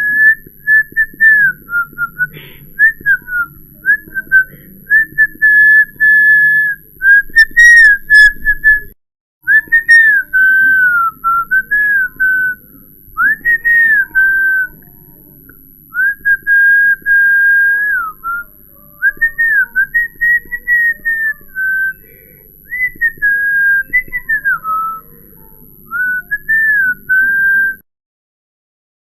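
A person whistling a wandering tune in short notes and phrases, one clear pitch sliding up and down. The sound cuts out completely for a moment about nine seconds in and again near the end.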